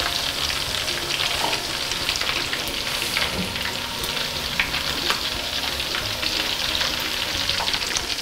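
Beef meatballs frying in hot oil in a pan: a steady sizzle with a dense crackle of small pops.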